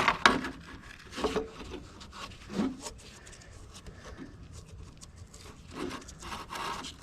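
Scattered scraping and rubbing as parts and debris under the chassis are handled, with a few short knocks.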